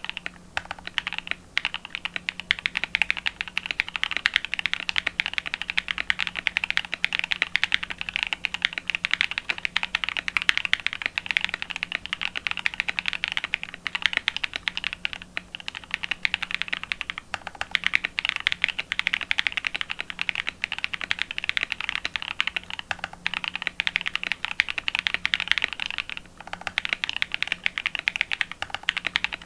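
Fast, continuous typing on a Matrix Vita mechanical keyboard: lubed NovelKeys Cream linear switches on an aluminium plate under PBT keycaps, with brief pauses now and then.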